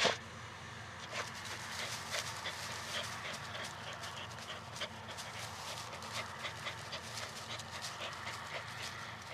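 Jack Russell terrier panting, with a sharp knock at the start and many short irregular clicks throughout.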